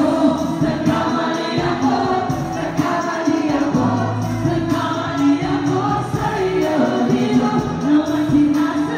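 Live rap performance: a music track played loud through a PA system, with vocals over it.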